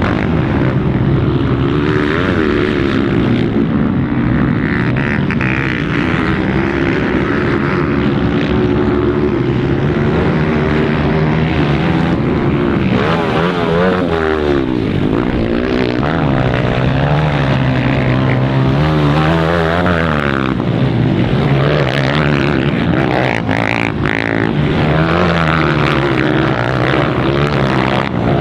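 Several motocross dirt bike engines revving hard, their pitch rising and falling constantly and overlapping as the bikes race round the track.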